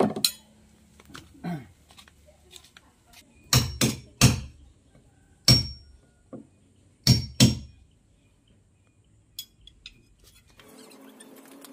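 Hammer blows, several sharp strikes mostly in quick pairs, some with a short metallic ring. Background music comes in near the end.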